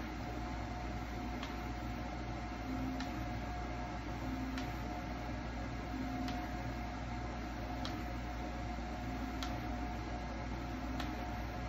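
Rostock Max v4 delta 3D printer probing its bed: the stepper motors whir briefly with a faint tick about every second and a half, over a steady hum from the running printer.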